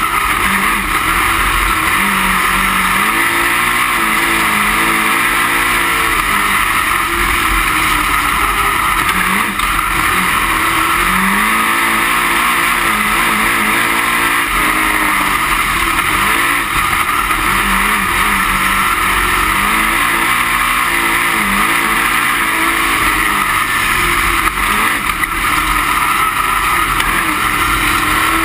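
Dirt-track race car engine heard from inside the cockpit at racing speed, loud and unbroken. Its pitch rises and falls every few seconds as the driver accelerates down the straights and lifts for the turns.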